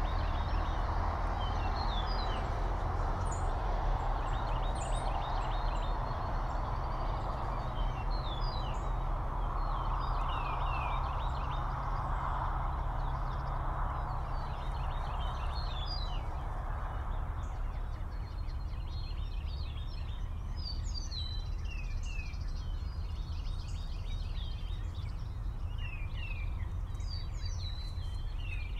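Songbirds chirping and singing in many quick, short high notes over a steady outdoor rush and low rumble. The rush eases a little partway through.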